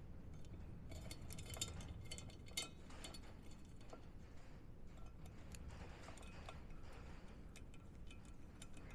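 Faint, irregular small metallic clicks and ticks as bolts are fitted and started by hand with a small tool into a Honda Benly's engine side cover.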